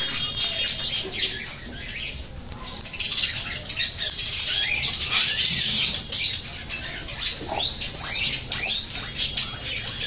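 A flock of budgerigars chattering, a steady stream of quick high chirps and squawks, busiest in the middle.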